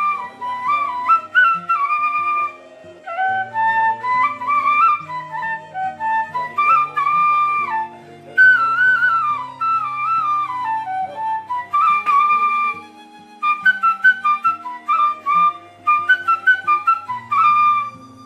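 Bamboo transverse flute (bansuri) playing an ornamented melody in phrases, with short breaks for breath about every four to five seconds. Low held accompaniment notes sound underneath.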